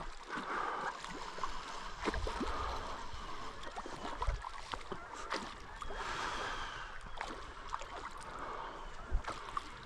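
Creek water running and gurgling, with scattered sharp clicks and a few low knocks.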